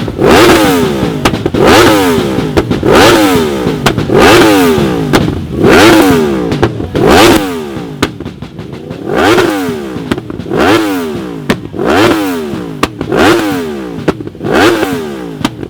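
A motorcycle engine revved hard over and over, about once every second and a quarter, its pitch climbing quickly and dropping back each time, with a few sharp cracks in between.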